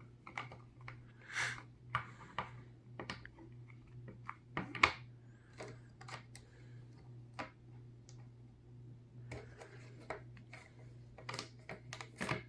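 Faint, irregular plastic clicks and scuffs from speed cubes being handled and turned, over a steady low hum.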